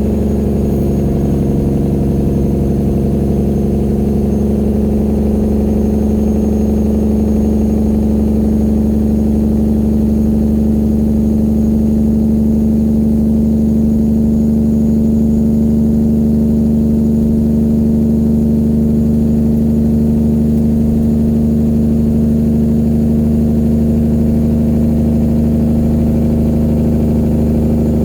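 1999 Peterbilt 379's straight-piped diesel engine running steadily, with a strong, even drone that holds the same pitch.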